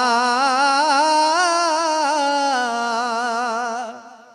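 A man singing a Punjabi devotional verse, drawing out the end of a line in one long note that wavers up and down in pitch. The note fades out about four seconds in.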